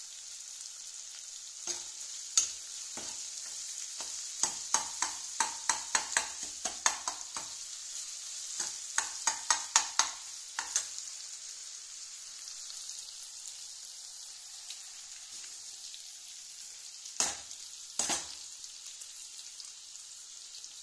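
Minced chicken frying in oil in a steel pan, a steady sizzle. A steel ladle stirs it, scraping and knocking against the pan in a quick run of strokes through the first half. Two louder knocks come near the end.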